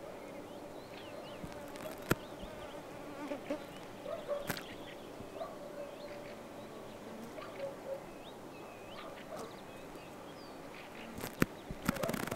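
Insect buzzing near the microphone, a faint wavering drone, with small birds chirping. A few sharp single clicks, and a quick cluster of clicks near the end.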